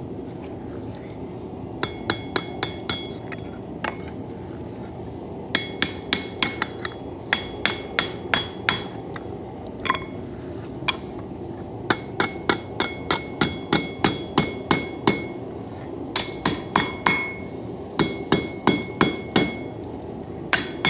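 Hand hammer striking hot coil-spring steel on an anvil in several runs of quick blows, about three to four a second, with short pauses between; each blow leaves a bright metallic ring. A steady rushing noise runs underneath.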